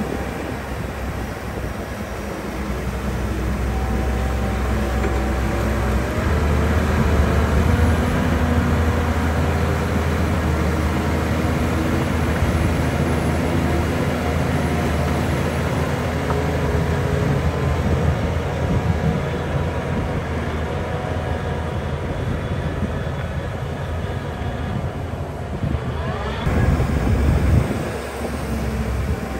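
Diesel engine of heavy earthmoving machinery running under load, a steady low drone. It grows louder about six seconds in and swells briefly near the end before dropping back.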